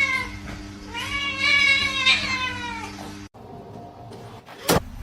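Domestic cat meowing: a long drawn-out meow trails off at the start and a second long meow follows about a second in. Then the sound cuts to a quieter background with one sharp knock near the end.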